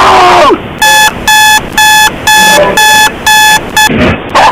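Digital alarm clock beeping: about seven quick, evenly spaced beeps, roughly two a second, after a short cry at the start.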